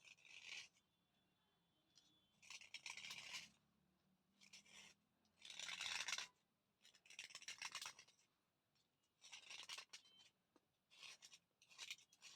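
Chandni brand thick slate pencil being scraped and rubbed dry: about eight short, scratchy strokes, each under a second long, with short pauses between them.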